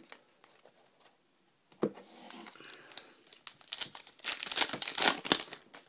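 A 2012 Topps Allen & Ginter's baseball card pack being torn open by hand: a short tap about two seconds in, then the wrapper crinkling and tearing, loudest in the second half.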